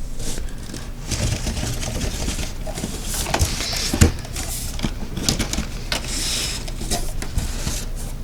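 Cardboard shipping case being opened and its carded die-cast cars handled: continuous rustling and scraping with scattered clicks, and a sharp knock about four seconds in.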